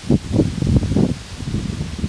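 Wind buffeting the camera microphone in loud, irregular low rumbling gusts, starting suddenly.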